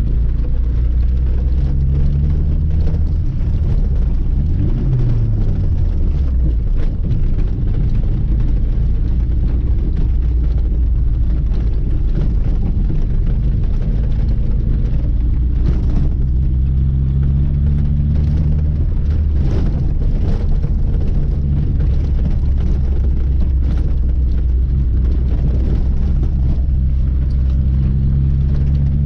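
Lada 2106 (VAZ-2106) running on the road with a steady low drone of engine and road noise. About five seconds in, the engine note falls and then settles again.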